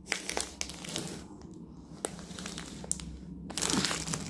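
Plastic wrapping on a rolled diamond-painting canvas crinkling and crackling as the roll is handled, with scattered sharp clicks. It goes quieter a little past a second in, then the crinkling grows denser near the end as the roll is moved.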